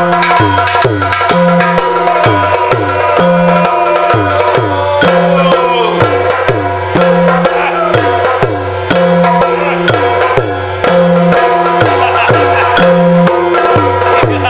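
Yakshagana percussion ensemble playing a steady, driving rhythm: chende and other drums beating with falling-pitch strokes and sharp cymbal clicks, over a sustained drone.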